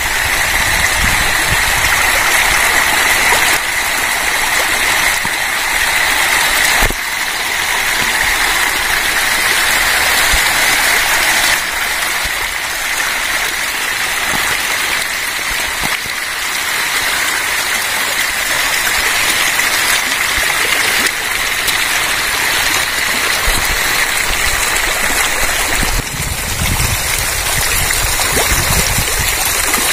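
A dense shoal of hybrid magur catfish thrashing at the pond surface as they feed on floating pellets: a steady, continuous splashing and churning of water.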